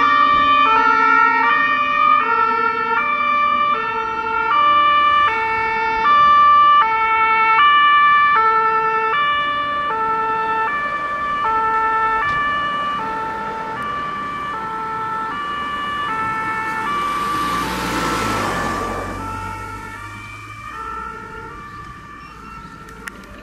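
German two-tone Martinshorn siren on a fire brigade rescue truck, alternating a high and a low tone about every one and a half seconds and fading as the truck drives away. About three quarters of the way through, a lorry passes close by with a rush of noise and a low rumble.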